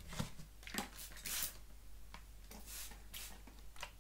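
A series of short hisses from a water spray bottle misting the front section of hair to dampen it before cutting, the longest about a second and a half in.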